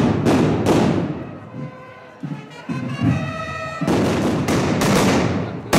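Firecrackers going off in the street: two sharp bangs near the start, then a rapid string of bangs from about four seconds in, each with a short echoing tail. A procession band plays underneath, with a few low drum beats in the quieter middle.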